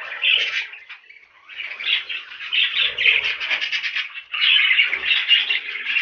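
Budgerigars chattering: a steady run of quick warbling chirps, with a brief lull about a second in.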